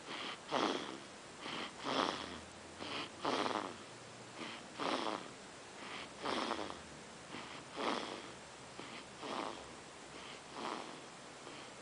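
Snoring in sleep: breathy snores, a loud one about every one and a half seconds with softer breaths between.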